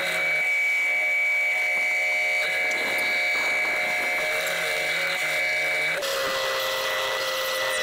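Bandsaw running with a steady hum and constant high tone as its blade cuts through a thick laminated end-grain wood block. The tone shifts slightly about six seconds in.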